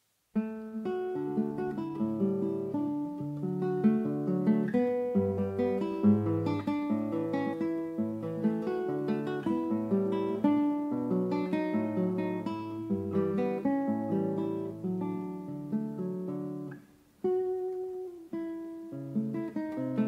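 Background music on acoustic guitar, a steady run of plucked notes. The music drops out briefly about three-quarters of the way through, then starts again.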